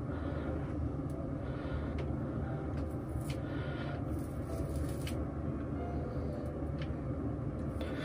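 Steady low hum, with a few faint, short clicks as a mini crimping iron is clamped and released along a lock of hair.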